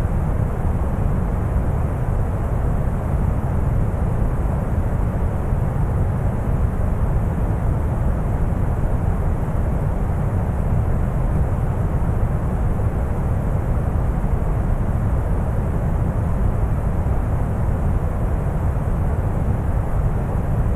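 Deep brown noise: a steady, even rumbling hiss weighted heavily toward the low end, with no changes or events.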